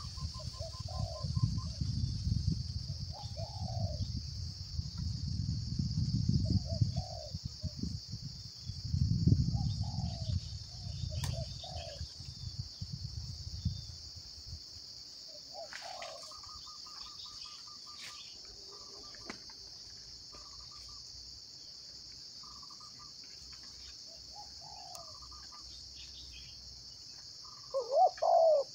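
Steady high-pitched insect drone, with short low cooing calls of spotted doves every second or two and a louder coo near the end. A low rumble runs under the first half and stops about halfway through.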